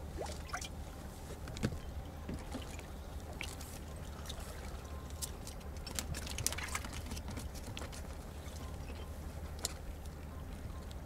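Small clicks and rustles of fishing line and tackle being handled in a boat, over a steady low hum and a light trickling of water.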